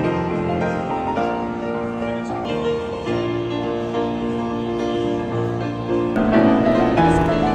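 Grand piano being played: a slow piece of held notes and chords.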